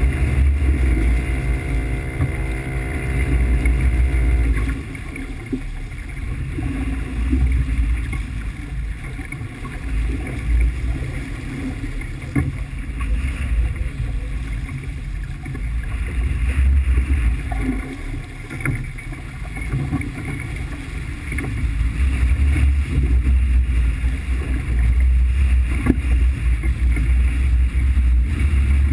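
An engine running under a heavy, uneven low rumble. A set of steady tones stops about four and a half seconds in.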